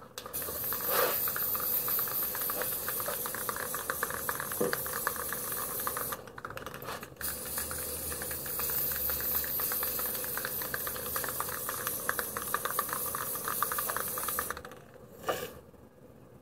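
Aerosol spray paint can hissing as paint is sprayed, in two long sprays with a short break about six seconds in; the spraying stops near the end.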